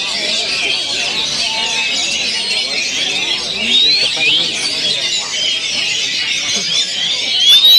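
Many oriental magpie-robins (kacer) singing at once, in a dense, unbroken chorus of overlapping whistles, glides and chatter, the massed song of a kacer contest.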